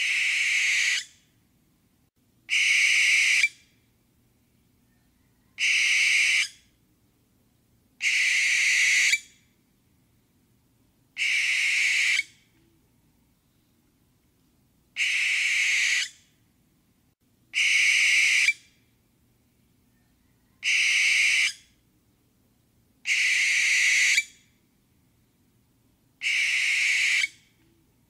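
Barn owl screeching: ten screeches of about a second each, spaced two to four seconds apart.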